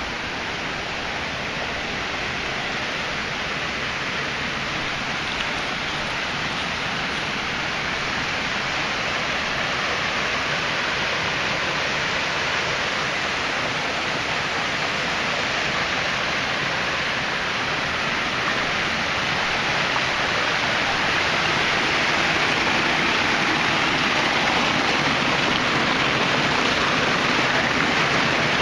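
Small waterfall of typhoon run-off water pouring, a steady rush that grows slowly louder.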